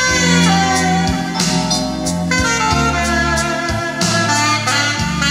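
Music playing from a vinyl LP on a Thorens TD 295 MK IV turntable: an instrumental piece with held melody notes over a bass line that changes note about once a second.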